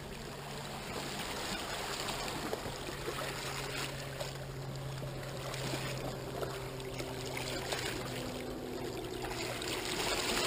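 Seawater sloshing and trickling around the rocks of a tide pool as a hand holds a fish in the water, with a faint low steady hum underneath.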